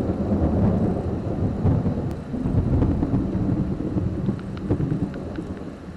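Thunder rumbling low and long after a lightning flash, fading away near the end, over steady rain.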